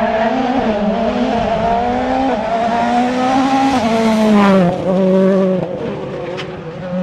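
Rally car engine at high revs on a special stage, its pitch climbing and dropping through gear changes and lifts. About four and a half seconds in the revs fall away and the engine is quieter for a moment before picking up again near the end.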